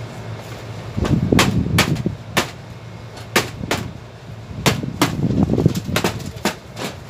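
Sharp metal knocks and bangs at uneven intervals, with a low rumble under the busiest stretches, as tools work on a sheet-metal HVAC duct to free a jammed volume damper.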